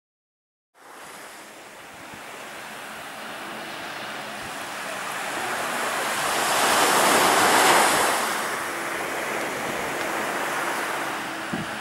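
Small surf breaking on a sandy beach, starting about a second in. The wash swells to a peak a little past the middle, then eases back, with some wind on the microphone.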